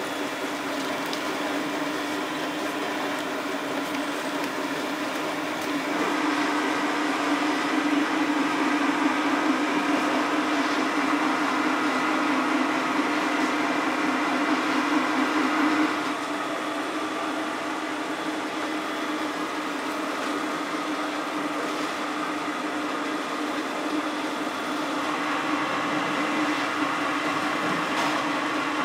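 Curry roux factory production machinery running with a steady hum and whir. The sound changes abruptly about six seconds in, again about sixteen seconds in, and grows a little louder near the end.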